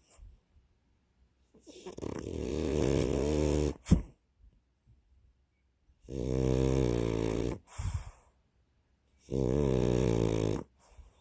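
French bulldog snoring: three long snores, evenly spaced about three and a half seconds apart. The first ends in a short, sharp snort, the loudest sound.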